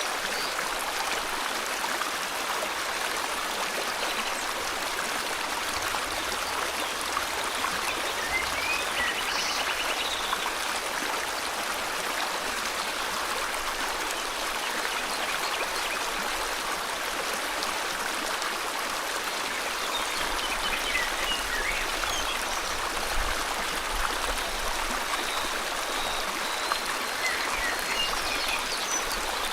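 River water flowing steadily, with faint bird chirps now and then.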